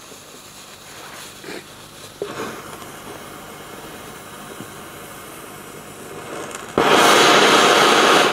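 Firecracker fuse hissing and sputtering, then a loud rushing fizz for about a second and a half that cuts off suddenly: the firecracker fizzles out ('verpufft') instead of going off with a bang.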